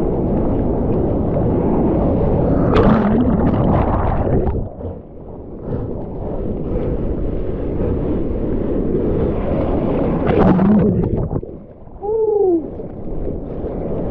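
Broken surf and whitewater rushing and splashing over a camera held at water level, with sea noise churning against the microphone. The noise dips twice, about five seconds in and again near twelve seconds, and a short falling gurgling tone comes just after the second dip.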